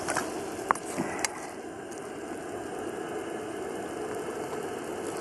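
Jetboil gas canister stove burning steadily under a frying pan with a hamburger cooking, a continuous hiss. Three sharp clicks come in the first second and a half.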